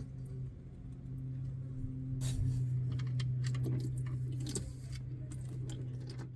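Scattered light clicks and clinks, as of small metal parts being handled, over a steady low hum.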